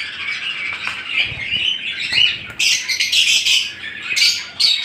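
A cage of Fischer's-type lovebirds chattering and squawking, many shrill overlapping calls, growing busier and louder about halfway through.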